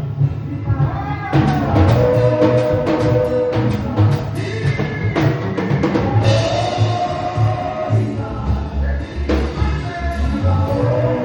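Live gospel praise music: a band with drums and bass under singing voices.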